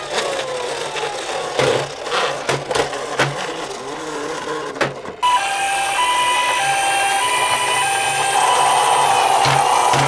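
Toy ambulances' electronic sirens. One siren winds down in pitch at the start, followed by clicks and knocks of the plastic toy cars. About five seconds in, a battery-powered toy ambulance siren starts a two-tone hi-lo call, alternating a high and a low note.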